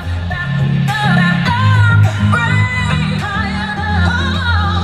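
Pop music with a singing voice carrying a wavering melody over a steady bass line.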